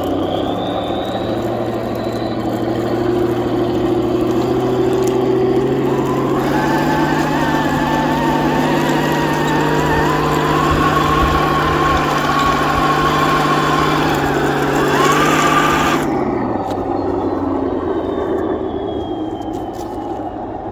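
Heng Long 1/16 Tiger 1 RC tank driving, its speaker playing the simulated tank-engine sound effect over the whine of its electric drive motors and plastic gearbox. The engine note rises over the first few seconds, turns louder and harsher with a wavering whine through the middle as the tank climbs, then eases back down near the end.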